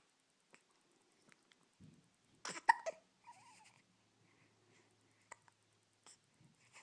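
Hiccups: one sharp, loud hiccup about two and a half seconds in, then a couple of fainter short hiccups near the end.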